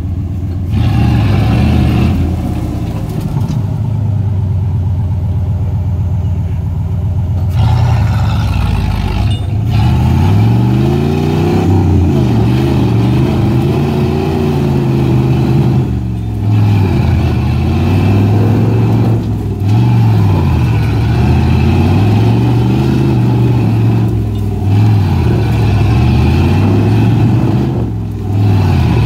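Off-road vehicle's engine running under load on the trail. From about ten seconds in it revs up and drops back over and over, every few seconds, as the throttle is worked while the vehicle tries to climb the trail.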